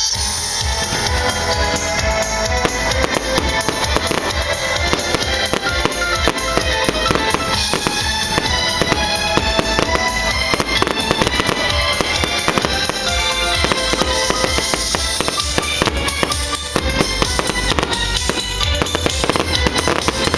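Rock song with a steady drum-kit beat and full band, played as background music.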